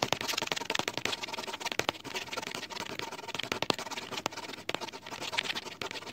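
Ballpoint pen scratching on paper in rapid hatching strokes, a dense run of irregular scratches and clicks that stops at the end.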